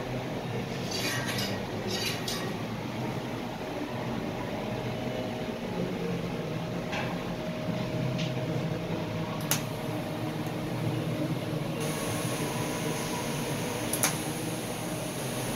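Electric arc welding inside a steel tank: a steady hissing crackle of the arc over a low hum, with a few sharp clicks. It turns brighter and hissier about three-quarters of the way through.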